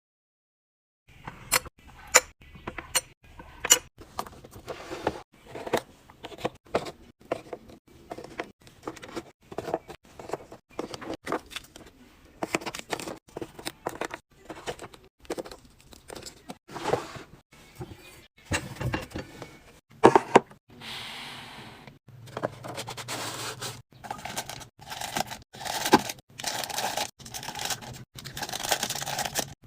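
Food packaging and containers being handled and set down while restocking a fridge: sharp clicks and knocks with plastic crinkling and tearing, starting about a second in.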